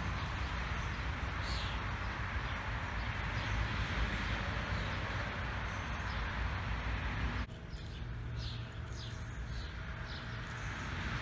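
Outdoor ambience: wind rumbling on the microphone with a steady rush of noise, and a few short bird chirps. The rush eases suddenly about seven seconds in.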